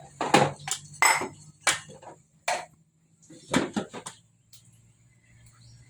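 A metal utensil clinking and knocking against a cooking pot of frying palm-fruit pulp in oil, about seven hits over the first four seconds. A steady low hum runs underneath.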